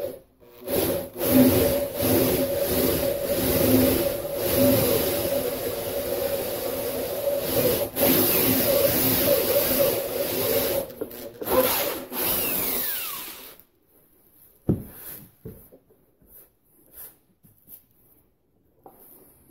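Cordless drill with a 3/8-inch bit boring through the fiberglass bulwark of a model ship hull, widening a pilot hole. The motor runs steadily with the bit grinding through, stops and restarts briefly a few times, then cuts off about two-thirds of the way through, followed by a few light knocks.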